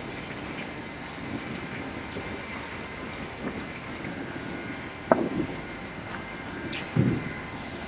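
Multi-blade rip saw machines running with a steady mechanical din, with wooden slabs knocking as they are handled: two louder knocks, about five seconds in and again near the end.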